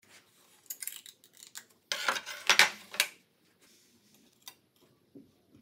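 Aluminium fence blocks and a steel rule being handled and slid into place on a plywood jig: a few light metal clicks, then a louder scraping, clattering slide about two seconds in that ends in a sharp click, and one more click near the end.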